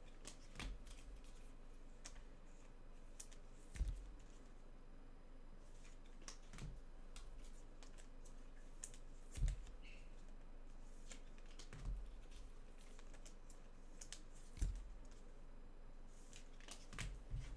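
Trading cards and wrappers being handled on a table: scattered small clicks and rustles, with a few soft thuds as things are set down.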